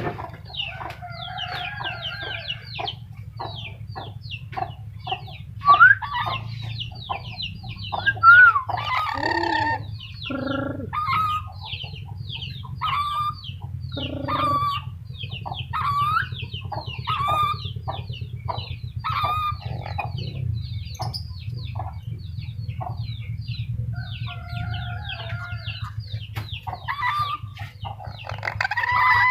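Black-capped lory chattering and squawking: rapid clicking chatter mixed with short whistled, bending notes. A steady low hum runs underneath.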